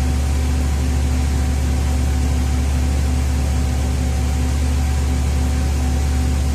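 Steady rush and hum of a 2004 Ford Freestar's electric radiator cooling fan running on high speed, with the V6 engine idling. Only the right-hand fan is turning: the left fan motor has failed.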